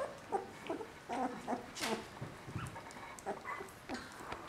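Three-week-old border collie puppies making short, irregular whimpers and grunts, mixed with small clicks and rustles as they mouth a plush toy on the blanket.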